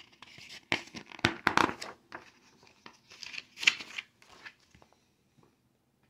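Paper page of a picture book being turned by hand: a string of sharp rustles and crinkles over about five seconds, loudest in the first two seconds and again before the four-second mark.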